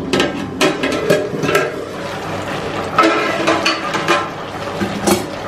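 Metal lid taken off an aluminium cooking pot, with a series of clinks, knocks and scrapes of metal on metal, as the boiled vegetables inside are checked for doneness. One clink about three seconds in rings briefly.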